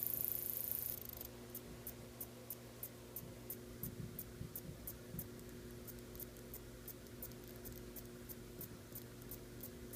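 Grasshopper stridulating: a continuous high-pitched buzz for about the first second, then short high ticks at about three a second.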